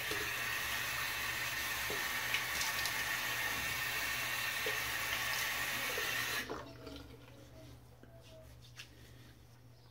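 Sink faucet running steadily, then turned off abruptly about six and a half seconds in, as the water is used for rinsing after the first shaving pass.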